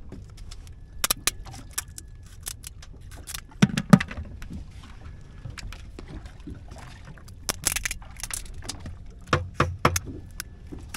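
Shears snipping through green crab shells, cutting the crabs in half for bait: sharp snips in several clusters, the loudest about four seconds in, over a low steady rumble.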